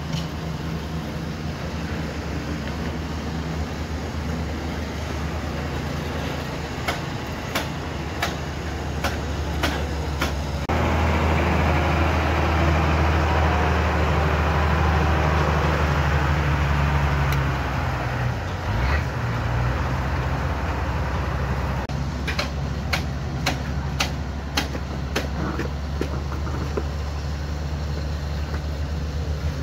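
Steady low drone of an engine running on the site, with groups of sharp taps of a steel trowel on hollow clay bricks as they are set in mortar. About eleven seconds in, a louder rushing machine noise joins for some six seconds, then fades back to the drone.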